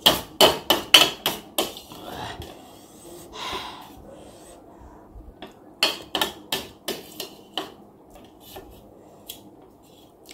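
A metal spoon and chopsticks clinking and scraping against a metal plate while trying to pick up a boiled egg. A quick run of sharp clicks comes at the start and another about six seconds in, with fainter taps between and after.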